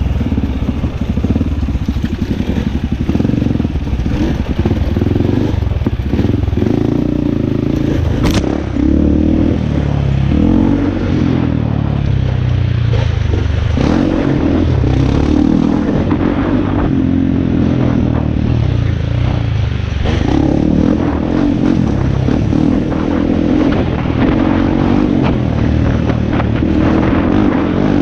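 Dirt bike engine running under way on a rough trail, its pitch rising and falling over and over as the throttle is opened and rolled off. A sharp click about eight seconds in.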